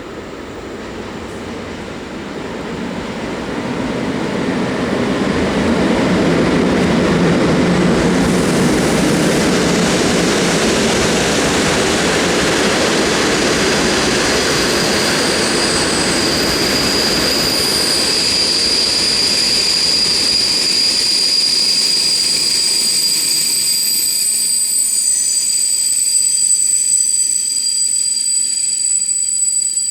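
A passenger train hauled by a Polish 'siódemka' (EU07-family) electric locomotive rolls into a terminus station. A rumble of wheels and carriages builds over the first few seconds, then high-pitched, steady brake and wheel squeals rise and grow louder as the train slows to a stop.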